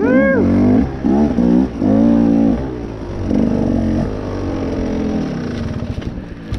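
Off-road vehicle engine revved hard in several quick bursts, its pitch shooting up and dropping back each time, then running more evenly and easing off near the end as it works up a hill climb.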